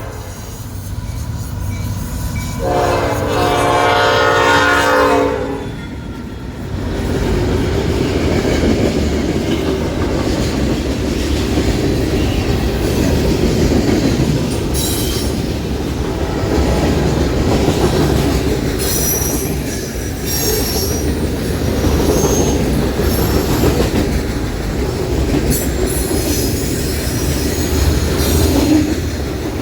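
A Nathan P5 five-chime locomotive air horn: the tail of one blast at the start, then a second blast of about three seconds. After that a long freight train passes close by, its wheels rumbling and clacking over the rail joints, with brief high wheel squeals now and then.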